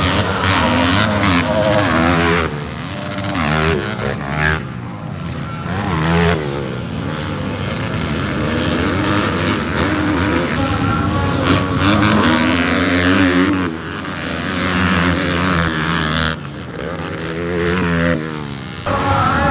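Several dirt-bike engines revving hard, their pitch rising and falling again and again, with a lower steady engine drone underneath.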